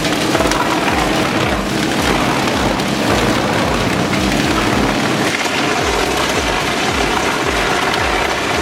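Wood chipper shredding wood: a dense, loud crackle and splintering with no break, over a steady low machine drone with an even pulse underneath.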